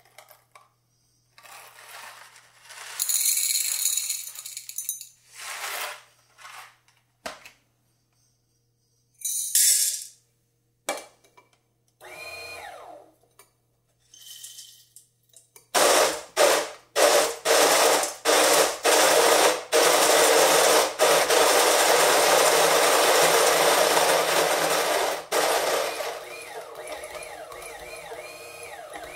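WPM electric coffee grinder grinding a dose of beans, running steadily for about ten seconds from just past halfway through. Before it come short rattles and hisses of coffee beans being poured and weighed.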